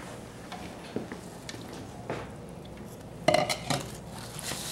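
Spoon stirring a dry oat-and-fruit mixture in a bowl: scattered scrapes and light clinks, with a louder clatter of knocks about three seconds in.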